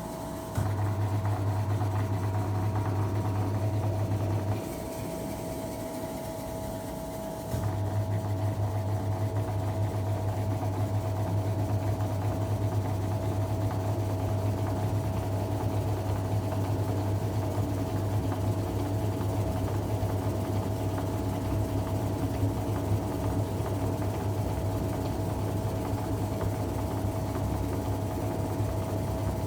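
Automatic washing machine running with a steady low hum. It stops for about three seconds near the start, then starts again and runs on.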